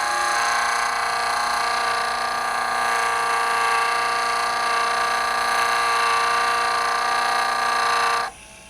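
JOOLTOOL bench polishing machine running at medium-low speed with a 3M 20-micron diamond abrasive disc grinding a glass jewelry piece wet: a steady whine over a grinding hiss. It cuts off about eight seconds in.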